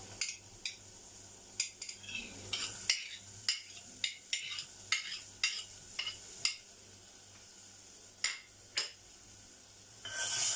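Chopped onion frying in melted butter in a pot while a utensil stirs it, giving irregular clicks and scrapes against the pot over a faint sizzle. The sizzle grows louder near the end.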